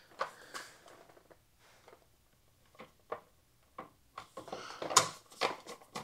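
Sparse light clicks and taps of small hand-work on a plastic motorcycle taillight as a screw is fitted, growing busier about four and a half seconds in.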